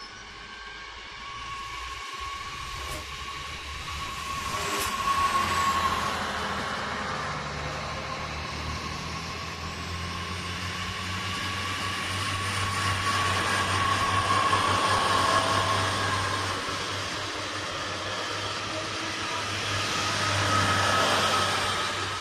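Bombardier AGC regional multiple-unit train pulling out and running past at close range: a continuous rumbling drone with a steady high whine on top, swelling several times as the cars go by and starting to fade near the end.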